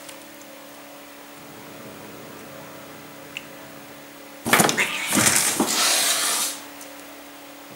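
A cat hissing loudly for about two seconds, open-mouthed, at another cat crowding it: a defensive warning hiss.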